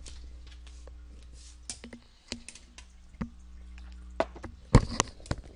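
Steady low electrical hum on the recording, with scattered small clicks. The hum stops with a louder click near the end.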